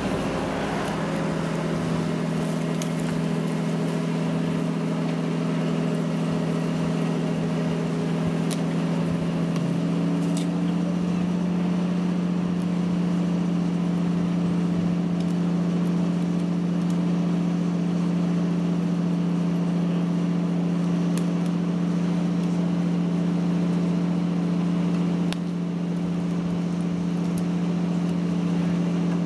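Crane engine running steadily at constant speed, a continuous drone; its tone shifts slightly about ten seconds in.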